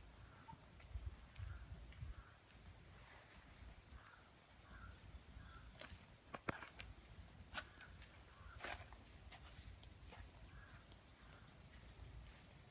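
Faint outdoor ambience: a steady high-pitched drone, with a low rumble in the first couple of seconds and a few sharp clicks about halfway through.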